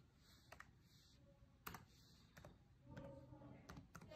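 Faint keystroke clicks on a Chromebook laptop keyboard: several separate, irregularly spaced key presses as a number is typed in.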